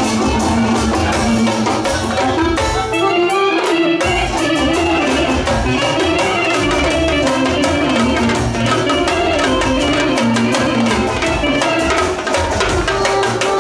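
Loud live band music: a woodwind melody over fast, driving drumming on hand drums and a drum kit.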